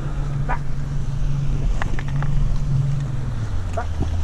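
A steady, low engine hum that drops to a lower pitch about three and a half seconds in, with a few light clicks and rustles close by.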